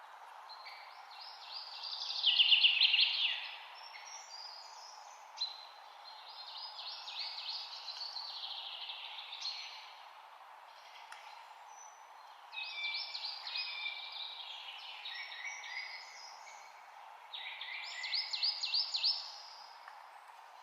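Songbirds singing in bursts of rapid, high trilling phrases, four in all, the loudest about two seconds in, over a steady background hiss.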